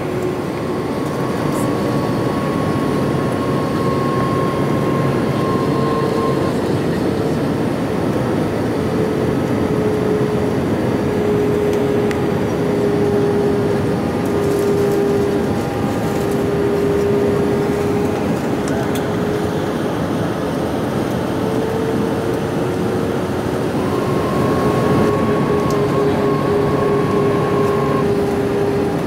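Cabin noise of an Airbus A319 in flight: a steady roar of airflow and engines under a droning engine hum whose pitch shifts slightly up and down a few times.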